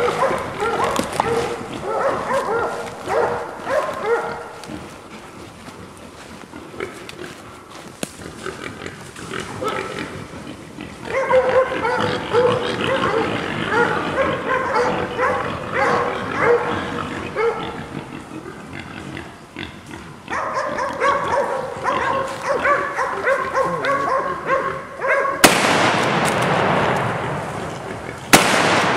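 Bay dogs barking and baying at cornered wild hogs, with hogs squealing among them; the barking is loudest in the first few seconds and again from about halfway on. Near the end, two sudden loud cracks of a lever-action rifle.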